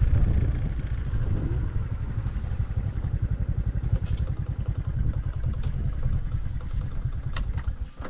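Motor scooter riding along at a steady speed: a low rumble of engine and wind on the microphone, fluttering rapidly and unevenly.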